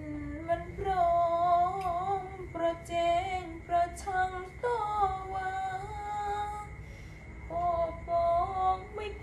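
A woman singing solo, a slow melody with long held, wavering notes in phrases broken by short pauses.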